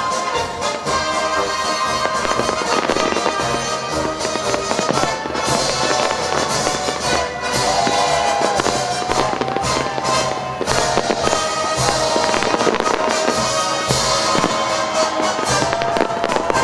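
Fireworks bursting and crackling in quick, dense succession, with music playing underneath.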